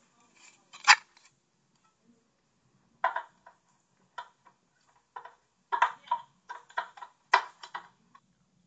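Hard plastic CD cases clacking and knocking together in irregular runs of sharp clicks as they are rummaged through on a shelf, with one loud knock about a second in and busier clattering from about three seconds on.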